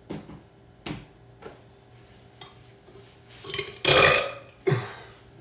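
A boy burping loudly about four seconds in, with a shorter sound just after it; a few faint clicks come before.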